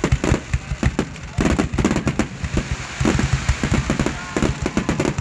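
Fireworks going off in rapid crackling pops, with a denser hissing stretch about a second and a half in.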